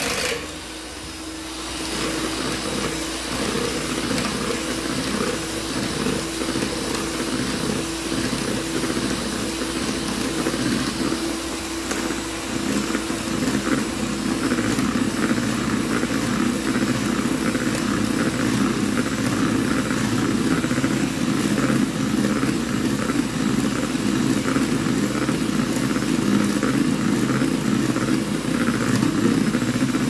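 Electric mixer running with its twin beaters whipping chilled heavy cream into chantilly: a steady motor hum with the whir and slosh of the beaters. It switches on just at the start and grows a little louder from about midway on as the cream whips.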